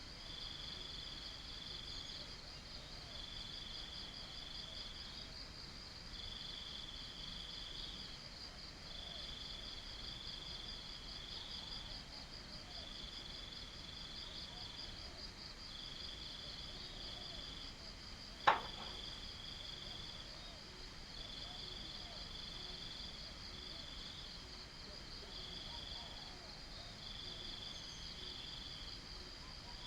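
A chorus of crickets chirring: a steady, high, rapidly pulsing trill, with a second, slightly lower trill that comes in phrases of about a second separated by short gaps. About two-thirds of the way through there is one sharp tap, louder than the insects.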